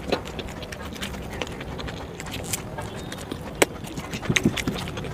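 Close-miked chewing of momo dumplings, wet mouth clicks and smacks scattered throughout, with a sharp click about three and a half seconds in and a few more near the end.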